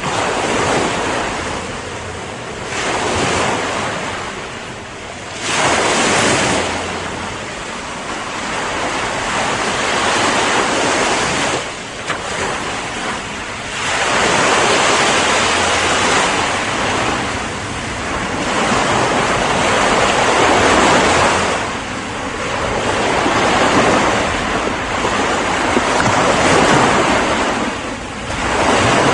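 Ocean surf: waves breaking and washing up the shore, the rush of water swelling and falling back every few seconds.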